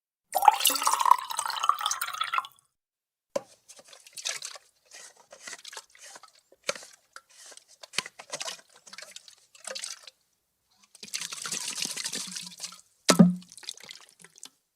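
Water sloshing inside a full plastic army canteen as it is shaken in separate goes: a long slosh at the start, a run of short splashes, another long slosh, then a sharp knock near the end.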